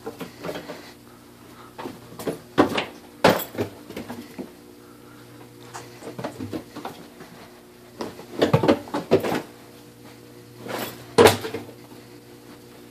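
Knocks and thumps of a ring-tailed lemur moving on and jumping from wooden closet shelving, with a clatter of knocks about eight seconds in and the loudest thump about eleven seconds in as it leaps off. A steady low hum runs underneath.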